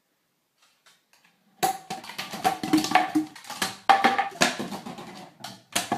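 Near silence for about a second and a half, then percussive music: a quick, uneven run of drum-like knocks and taps with a few pitched notes.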